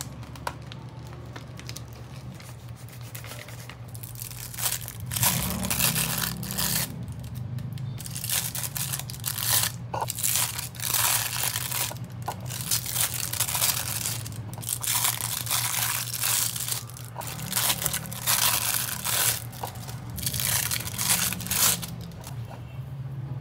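Repeated bursts of crinkling and tearing, as of material being handled, over a steady low hum; the bursts start about four seconds in.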